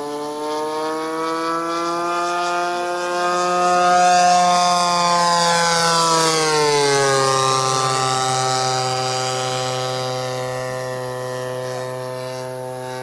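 Engine and propeller of a Great Planes Giant Stik radio-controlled model airplane in a fly-by: it grows louder, then its pitch drops about six to seven seconds in as it passes, and it fades away.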